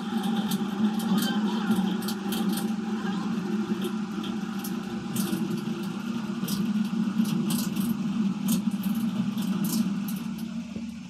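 Engine of a borewell drilling rig running steadily, with many irregular sharp clicks and ticks over it; it fades slightly near the end.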